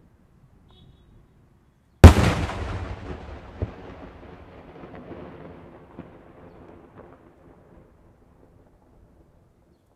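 A daytime firework shell going off with a single very loud bang about two seconds in, its report rolling and echoing away over several seconds, with a few fainter pops as it fades.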